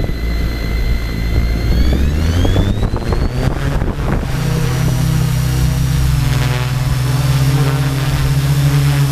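Tarot 690S hexacopter's six brushless motors and propellers spinning at idle with a high whine. The whine rises as the throttle comes up around two to four seconds in. The craft lifts off into a steady hover drone.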